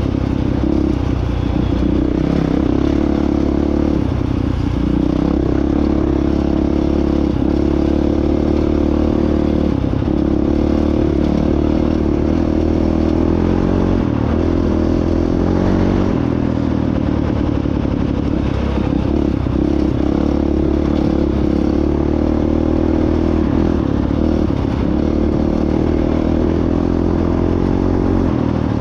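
Honda CRF450X dirt bike's single-cylinder four-stroke engine running at a fairly steady pitch while riding, with scattered clatter and rattles from the trail.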